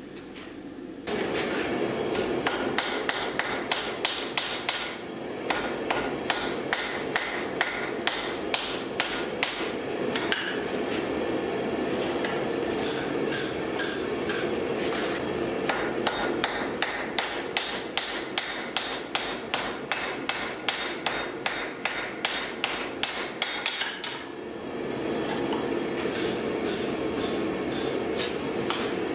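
Blacksmith's hand hammer striking red-hot steel on an anvil while forging an axe head: quick, even blows about two to three a second in several runs, over a steady low roar. The blows stop a few seconds before the end, leaving the roar.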